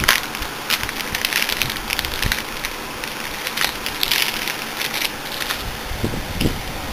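Handling noise: a crackly rustle with scattered light clicks as the hard drive's small mounting screws and parts are handled.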